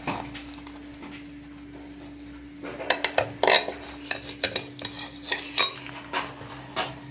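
Kitchen knife sawing through a sev-topped bun, its blade clicking and scraping against a glass plate in a quick run of sharp clicks from about three seconds in.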